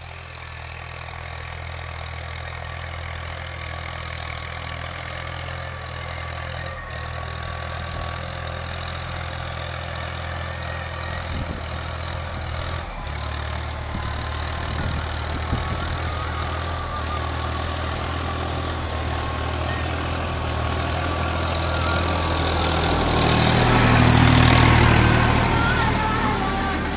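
Swaraj 963 tractor's diesel engine running steadily under load while pulling a disc harrow through ploughed soil. It is a low, even drone that grows louder as the tractor approaches and is loudest near the end.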